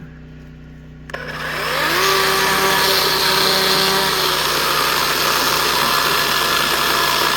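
DeWalt 20V brushless cordless chainsaw (DCCS620B) on its trigger: the motor spins up with a short rising whine about a second in, then runs steadily at full speed, cutting through pine.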